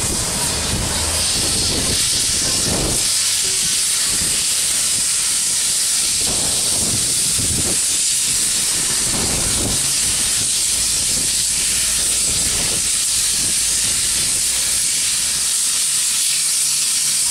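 Victorian Railways K-class steam locomotive K183 starting away, its open cylinder drain cocks blowing a loud steady hiss of steam, with slow, uneven exhaust chuffs every second or two beneath it.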